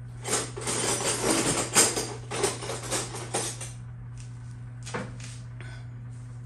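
Small metal tools and parts clattering and jingling as they are handled, for about three seconds, followed by a few separate light clicks.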